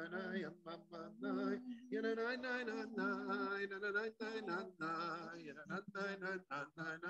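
A man singing a Hebrew prayer melody solo and unaccompanied. He holds notes with a wavering vibrato, with short breaks between phrases.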